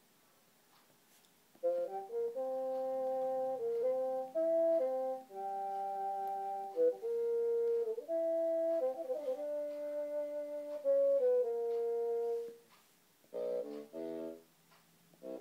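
Modelled wind-instrument voices from an iPad app playing a slow series of held chords, several notes at once, starting about two seconds in. After a short pause near the end come a few short, detached chords.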